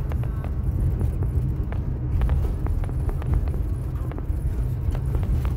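Steady low rumble of a car's engine and tyres heard from inside the cabin while driving, with scattered light clicks and rattles.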